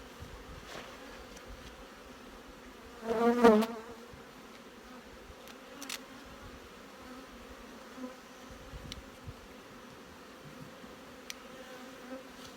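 Honeybees buzzing around an open hive, a steady hum from a colony the beekeeper calls a little bit angry in the cold. About three seconds in one bee flies close past the microphone, a loud wavering buzz lasting about half a second; a few faint clicks come later.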